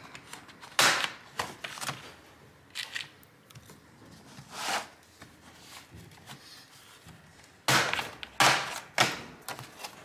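Plastic retaining clips of an Acer Aspire Vero laptop's recycled-plastic bottom cover snapping loose as a thin guitar pick pries the cover off. A few single sharp snaps come in the first half, then a quick run of several snaps near the end as the cover comes free.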